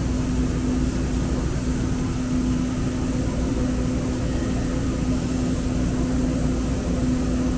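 Steady hum and rumble inside a Muni Metro light-rail car, with a constant drone holding one pitch.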